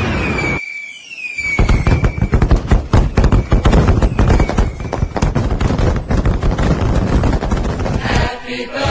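Fireworks: a whistle sliding down in pitch, then about six seconds of dense, rapid crackling and popping that stops shortly before the end.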